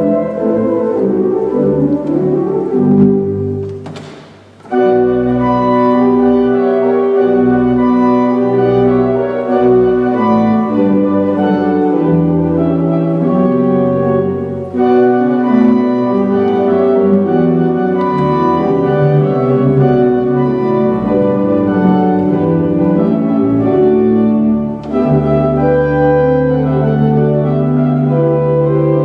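Pipe organ of 1914, a three-manual Steinmeyer, playing held chords that shift from one to the next. About four seconds in the sound dips to a brief gap with a short click, then the chords resume.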